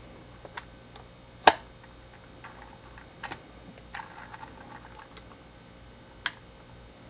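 Sharp metallic clicks of a single-shot break-action gun's action being worked by hand, its rebar barrel swung on the hinge and latched. There is a loud click about a second and a half in and another near the end, with lighter clicks and a short rattle between.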